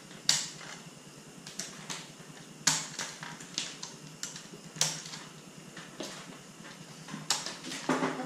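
Hard plastic clicks and taps as the pieces of a plastic shark-mouth toy game are pressed and snapped into place. There are three sharp clicks a couple of seconds apart and lighter ticks between them.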